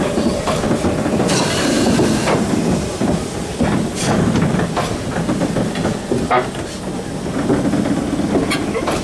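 Class 50 steam locomotive 50 3616-5 moving slowly, its running gear knocking now and then, with a burst of steam hiss about a second in.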